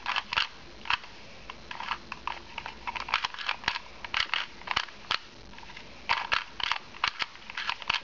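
Plastic 2x2 Rubik's cube being twisted by hand: quick clacking clicks from the layers turning, in irregular runs, as the last-layer corners are flipped with a repeated turning sequence.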